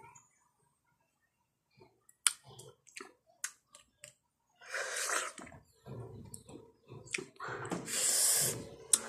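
Mouth sounds of someone eating santol fruit: sharp wet clicks and smacks, with longer sucking noises as the pulp is worked off the seeds, starting after about two seconds of near silence.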